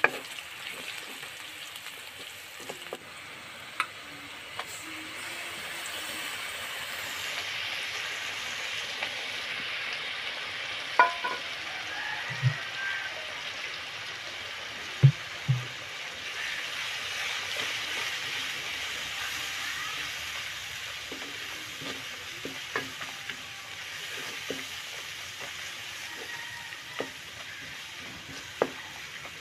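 Sliced onions and spice paste sizzling in hot oil in a wok, stirred with a wooden spatula. The spatula knocks sharply against the pan now and then, the loudest sounds over the steady sizzle.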